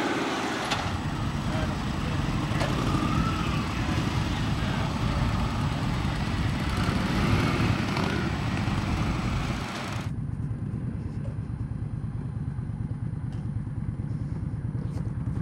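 Several motorcycle V-twins idle and pull away across a parking lot. About ten seconds in the sound cuts to an onboard recording of the Indian Scout's 1133 cc liquid-cooled V-twin running at low speed, quieter and duller.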